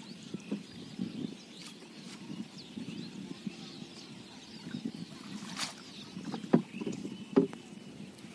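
Water sloshing and swishing around a small wooden boat being poled with a bamboo pole, with small clicks and two sharp knocks near the end.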